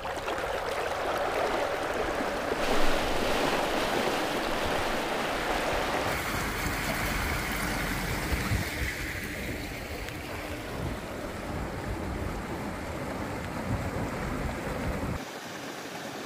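Water rushing and splashing along the hull and in the foaming wake of an aluminium jon boat under way at top speed behind a small electric outboard, with wind on the microphone. The noise stays steady but changes character abruptly a few times.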